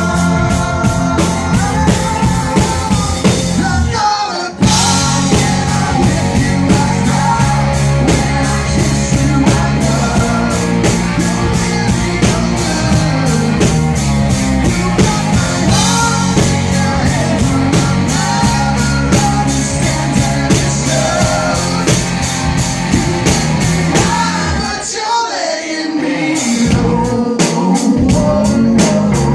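Live rock band playing loudly through a PA, with drums, guitar and a singing voice. The band cuts out for an instant about four and a half seconds in, and the sound thins for a couple of seconds near the end before coming back in.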